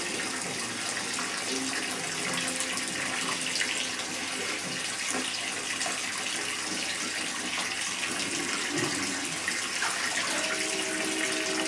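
Water running steadily from a bathtub tap into a partly filled tub.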